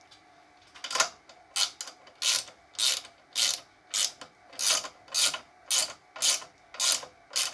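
Crescent X6 3/8-inch pass-through ratchet turning a nut along a threaded rod: about a dozen short bursts of pawl clicking, roughly two a second, one on each back-swing of the handle, starting about a second in.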